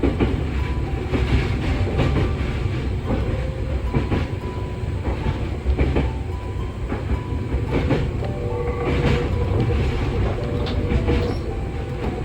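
Nankai electric train running on the line, with a steady rumble, wheels clacking over rail joints and short squeals and tones from the running gear.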